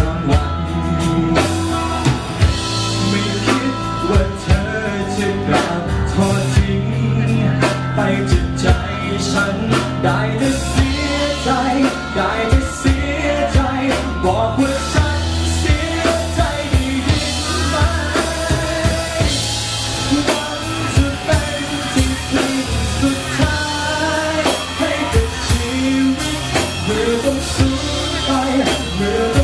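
Live band playing a sad Thai pop song, with male voices singing into microphones over drums and electric bass guitar.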